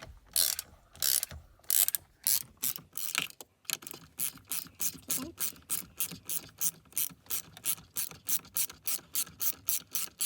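Ratchet wrench with a T55 bit undoing the steering wheel's centre bolt. There are a few slower, separate swings at first, then from about three and a half seconds in a quick, even clicking of about four clicks a second as the loosened bolt is wound out.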